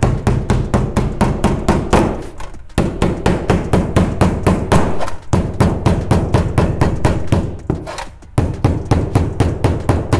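Hammer rapidly striking the metal head flashing of a skylight, beating down its upturned lip. The blows come several a second in runs, with brief pauses about a third of the way in, halfway and near the end.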